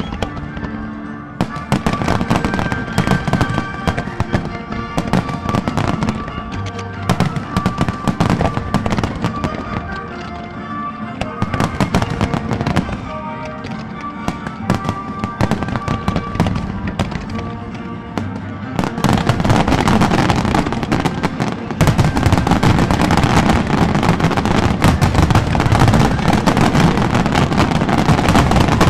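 Aerial firework shells bursting in quick succession over music. About 19 seconds in, the bursts thicken into a louder, dense, continuous barrage that drowns out the music.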